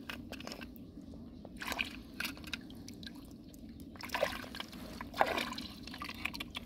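Hands sloshing and splashing in a shallow muddy pool while picking out snails, with water dripping from the hands. The splashes come in short scattered bursts.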